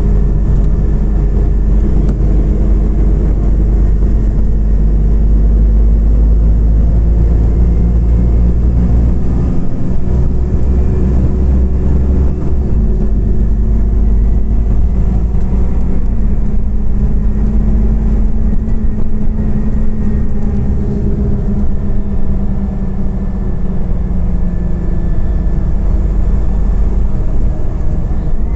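Inside a Scania OmniCity CNG city bus on the move: the gas engine runs with a steady low rumble and road noise, its note drifting slightly as the bus drives on, with a brief dip in level about 23 seconds in.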